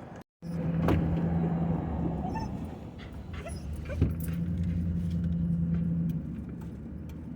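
A dog whining and whimpering with a few short high cries, over the low steady hum of a car on the move.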